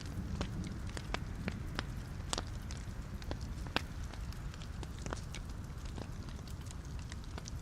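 Wood logs burning in a fireplace: a steady low rumble of the flames with frequent sharp, irregular crackles and pops, the loudest a little over two seconds in and again near the middle.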